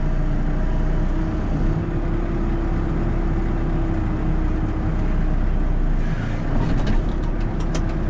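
Backhoe loader's diesel engine running steadily, heard from inside the cab; its note steps up slightly about two seconds in and settles back near six seconds. A few light clicks near the end.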